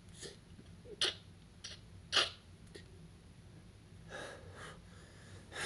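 A man breathing through nose and mouth: several short, sharp puffs of breath in the first three seconds, the loudest about one and two seconds in, then longer, softer exhales.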